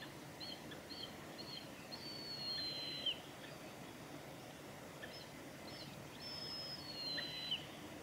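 Juvenile mountain hawk-eagle calling twice. Each call is a few short high whistled notes followed by one long, thin, slightly falling whistle that ends in a quick downward flick.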